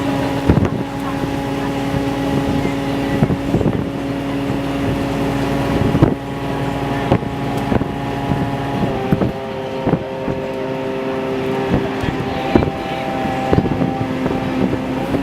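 Diesel train running: a steady engine drone that steps down in pitch about nine seconds in and back up a few seconds later, with irregular clacks and knocks throughout.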